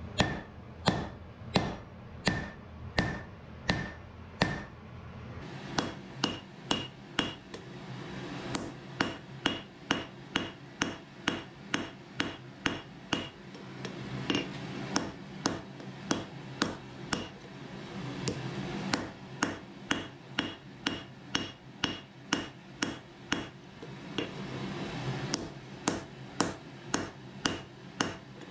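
Hand hammer striking a red-hot iron axe blank on an anvil: a steady run of blows about two a second, broken by a few short pauses. Each blow has a brief metallic ring, which turns higher after a pause about five seconds in.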